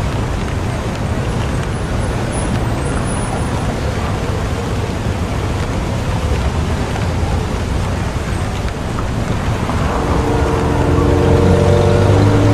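Steady city rain with a constant low traffic rumble. Near the end, a vehicle's engine drone swells louder as it passes.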